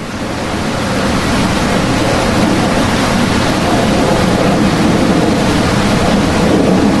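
Steady rushing jet-engine noise from a B-2 Spirit stealth bomber, rising out of a cut over about the first second.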